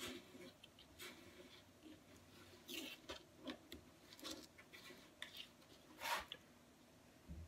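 Stir stick scraping and smearing JB Weld steel-reinforced epoxy on a small mixing pad: faint, irregular scratchy strokes, the loudest about six seconds in.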